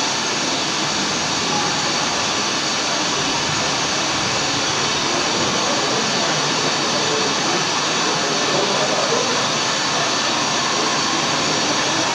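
Steady jet engine noise played over the loudspeakers of an HO-scale model airport, with a faint murmur of visitors' voices beneath it.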